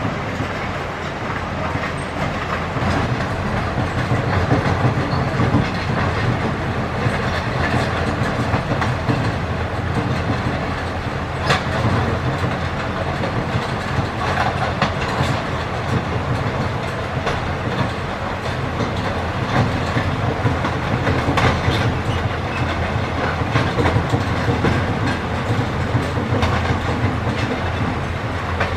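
Caterpillar excavator's diesel engine running steadily under load, with a few sharp clatters of river stone scattered through.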